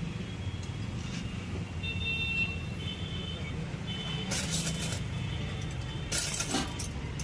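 Roadside traffic noise: a steady low engine rumble from passing vehicles, with faint high tones coming and going in the first half and two short bursts of hiss in the second half.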